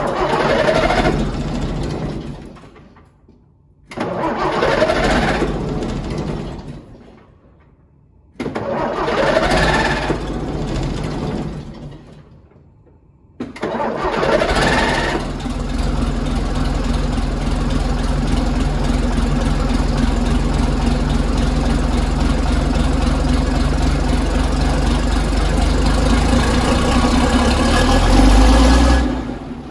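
Cold start of a 1965 Scania-Vabis L56 truck's diesel engine, heard at the exhaust. Three short starting attempts rise in pitch and die away. The fourth, about 13 seconds in, catches and settles into a steady idle.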